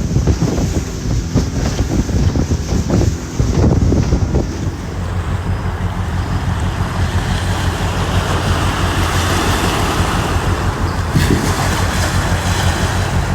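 Small aluminium boat running under way: the 1985 Yamaha 50 hp two-stroke outboard drones steadily under wind buffeting the microphone. For the first few seconds it is choppy with hull slaps on the water, then it smooths into a steady run.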